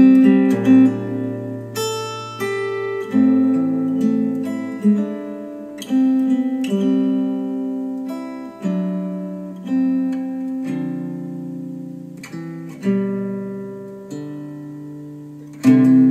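Acoustic guitar music played back through KEF R3 bookshelf speakers driven by a Marantz PM7000N amplifier. Chords are struck about once a second, each ringing out and fading before the next.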